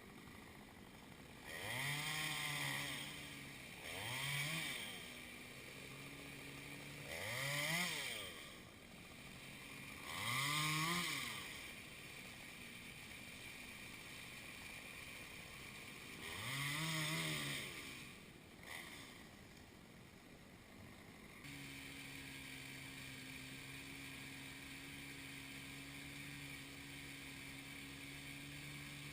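Gas chainsaw revved up five times in short throttle blips, each rising and falling back to idle, then a steady engine drone from about two-thirds of the way through.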